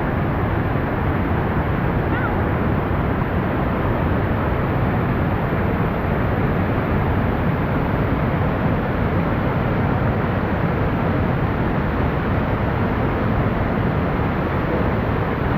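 Waterfall: a steady, loud, even rush of falling water.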